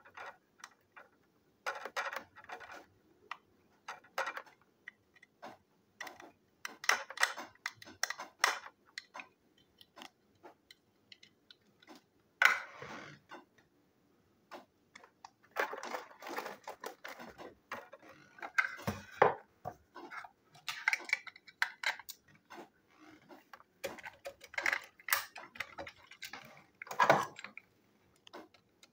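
Plastic clicks, taps and rattles from small battery-powered toy train engines being handled and snapped together on a tabletop, in irregular bursts with a few louder knocks.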